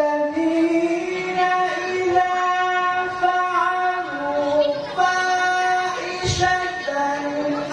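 A man's voice chanting Qur'an recitation (tilawah) through a microphone, in long, high held notes with ornamented melodic turns and short breaks between phrases.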